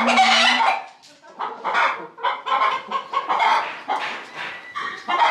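A flock of chickens, hens and roosters, clucking in a quick run of short, repeated calls.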